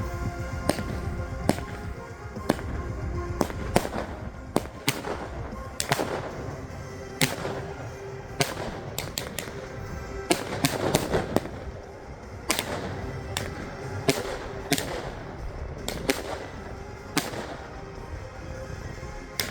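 Consumer firework battery, the Weco Cyborg, firing shot after shot: sharp bangs about one or two a second, some louder than others. Music plays underneath.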